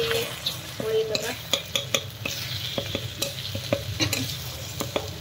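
A spatula scraping and clicking against a pan as a fried egg is broken up and stirred into chopped vegetables, with oil sizzling underneath.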